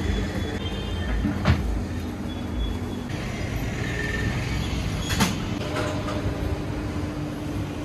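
Steady background noise of passing road traffic, a low rumble, with two short sharp knocks, one about a second and a half in and one about five seconds in.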